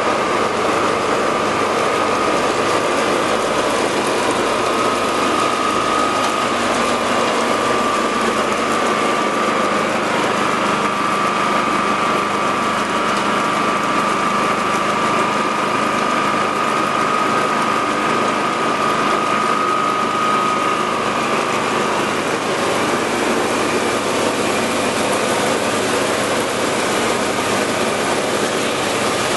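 Grain augers and grain-cleaning machinery running with grain, a loud steady mechanical noise with a high steady whine that fades about two-thirds of the way through.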